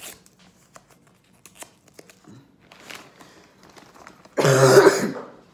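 Faint rustling and small clicks of a card-pack wrapper being handled, then a loud, brief crinkling of a clear zip-top plastic bag full of used wrappers about four and a half seconds in.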